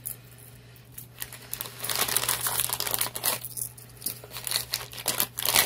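Plastic crinkling and rustling as small plastic bead jars and their wrapping are handled, in two stretches: one from about two seconds in, and a shorter one near the end.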